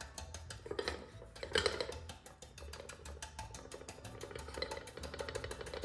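Stiff chip brush stippling textured rust-effect paste onto a metal lantern: rapid, irregular dabbing taps and bristle scratches, with louder flurries about one and two seconds in.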